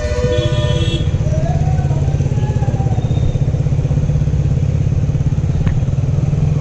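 KTM Duke's single-cylinder engine running steadily as the motorcycle rides slowly through town traffic.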